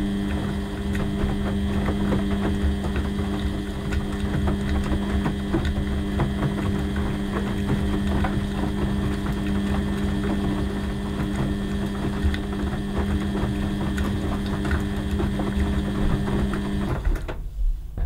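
Beko WX84243OW front-loading washing machine tumbling a wet wash load: the drum motor hums steadily while laundry and water slosh and knock inside the drum, giving many small clicks and thuds. The motor hum cuts off about a second before the end.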